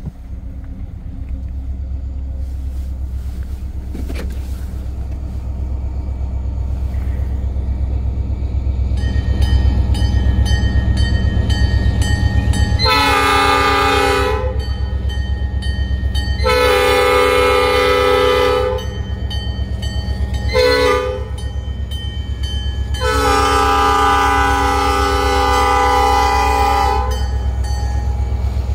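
Escanaba & Lake Superior diesel locomotive rumbling as it draws closer, then sounding its multi-note horn in the grade-crossing pattern: two long blasts, one short and a final long one.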